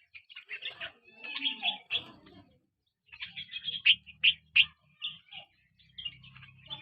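Small birds chirping: rapid clusters of short, high chirps, with a short pause about two and a half seconds in and a few sharp, louder chirps around four seconds in.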